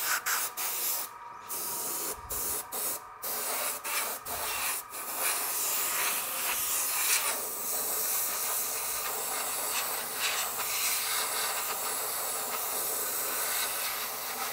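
Airbrush spraying blue colour, a high hiss of air: it starts and stops in short spurts for the first few seconds, then runs steadily.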